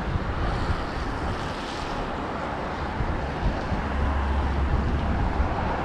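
Storm wind buffeting the microphone: a steady rushing noise with a low rumble that swells for about a second near the end.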